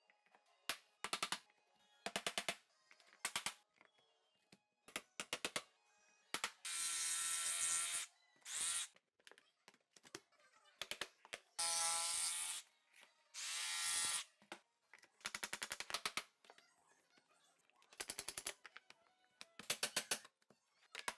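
Rapid runs of tapping and clicking as laminate planks are knocked and locked together, broken three times by a power tool running for a second or so at a steady pitch.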